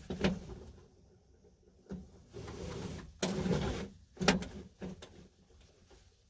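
1974 Dodge Charger seatbelt webbing being pulled out and run back into its retractor, with a sliding whir and sharp clicks about three times. The belt is being tried out after a repair to a retractor that used to lock as soon as the belt was pulled.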